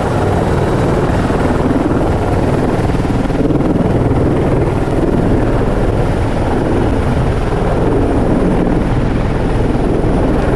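An Airbus Helicopters EC120B (H120) helicopter running steadily on the ground with its turboshaft engine and main rotor turning.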